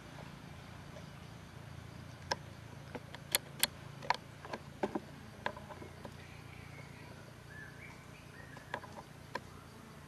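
A scattering of sharp, short clicks, most of them bunched between about two and six seconds in and two more near the end, over a steady low hum.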